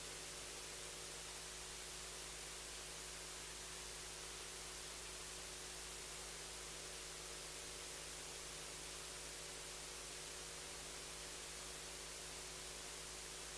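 Steady hiss with a faint, unchanging electrical hum, from the microphone and sound system.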